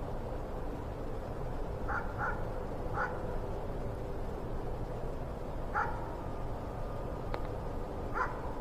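A dog barking in the distance, a handful of short barks spread out over a few seconds, over a steady low hum. The barking is heard as a sign that a security guard with a dog is approaching.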